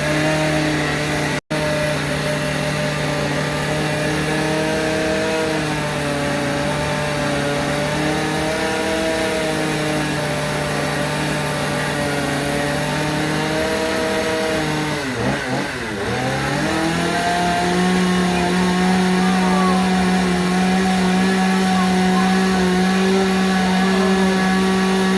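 Two-stroke chainsaw running at high speed, carving wood. Its pitch holds steady, drops sharply about two-thirds of the way through as the throttle eases, then climbs back and holds a little higher than before.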